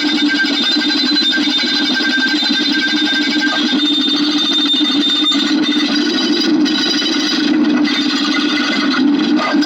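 A dense, unbroken stream of rapid clicks at a steady level, with a thin high tone under it that drops out about halfway through.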